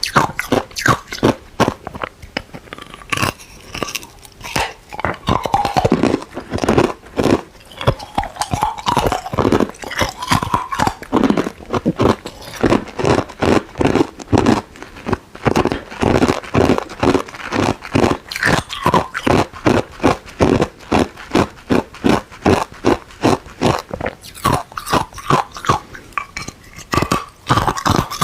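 Ice cubes being crunched between the teeth in close-up: a steady run of sharp crunches, about two to three a second, as the ice is chewed.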